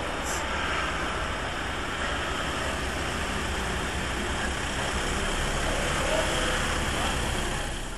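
Motor vehicle engine running steadily, with street noise.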